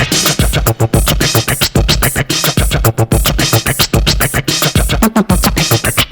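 Old-school electro / Miami bass music: a fast, dense drum-machine beat with deep bass pulses, overlaid with record scratching.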